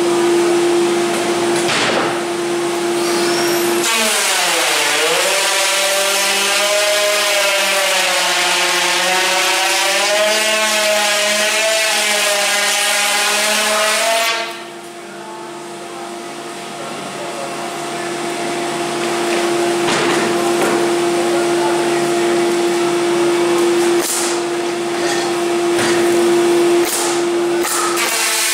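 SIP panel groove-milling machine running with a steady hum. About four seconds in, the cutter bites into the panel edge: its pitch dips, then wavers as the panel is pushed along. About halfway through the cut ends and the sound drops quieter, then builds back up toward the end.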